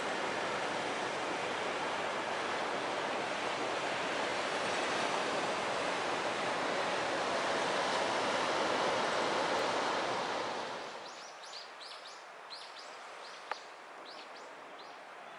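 Steady rushing noise of storm wind and surf on the coast, which drops away about eleven seconds in. After that, small birds chirp with quick, high, falling notes, and there is one sharp click.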